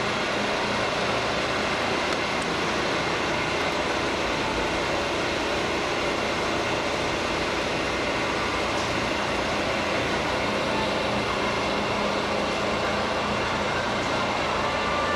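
Steady mechanical hum and hiss of machine-shop machinery running, with several faint steady tones in it and no distinct knocks or cuts.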